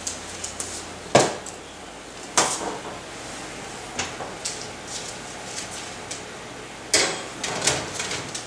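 Kitchen clatter: a few sharp knocks and clanks of cookware being handled, the loudest about a second in, at about two and a half seconds, and twice near the end, with small clicks in between.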